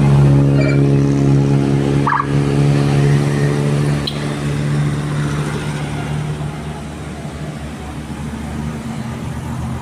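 A bus engine running with a steady low drone that slowly fades as the bus draws away. There is a brief high blip about two seconds in.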